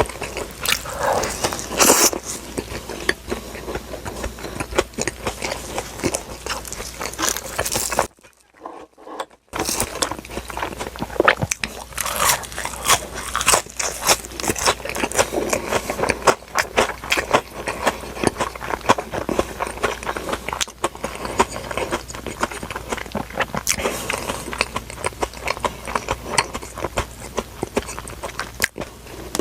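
Close-miked eating: biting and chewing food, with dense crackly mouth noises throughout. There is a brief break of near silence about eight seconds in.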